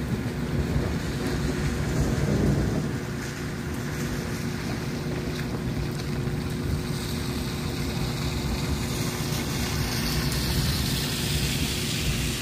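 Thunderstorm: a steady low rumble of wind and weather that swells about two seconds in, with the hiss of rain growing louder in the second half.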